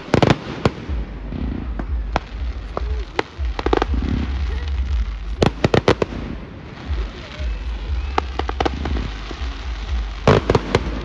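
A fireworks display going off: clusters of sharp crackling bangs at the start, around the middle and near the end, with scattered single reports and a low rumble between them.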